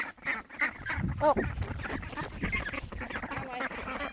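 Pet ducks quacking, a run of short, repeated calls. A low rumble joins them about a second in.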